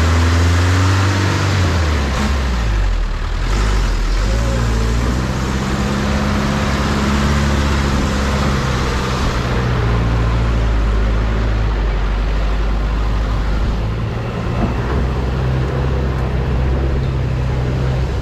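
A motor vehicle's engine running under way over a steady rushing noise. Its pitch steps down and back up a few times, about two seconds in, around ten seconds in and around fourteen seconds in.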